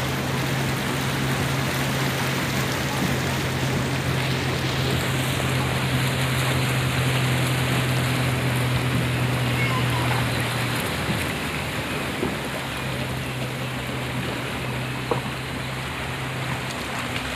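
Floodwater rushing and splashing along a street, a dense steady wash of water noise. A steady low hum runs underneath, breaking off about ten seconds in and returning a couple of seconds later.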